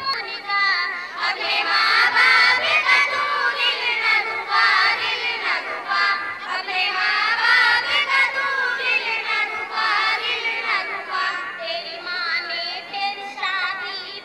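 Young girls singing a song together into microphones, one voice leading and others joining in.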